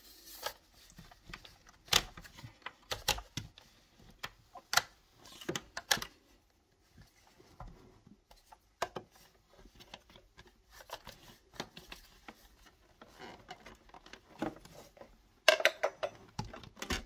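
UPVC window glazing bead being prised out of its frame: scattered sharp plastic clicks and knocks, with a quick run of clicks about a second and a half before the end.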